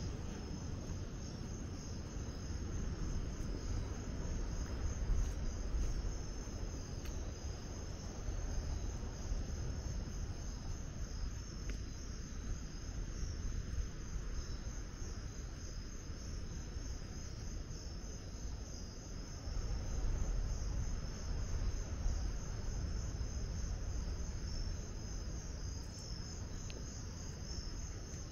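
A chorus of crickets chirping steadily through the night, a continuous fast-pulsing high trill, over a low rumble.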